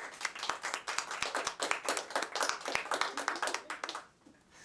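Audience applauding, then dying away about four seconds in.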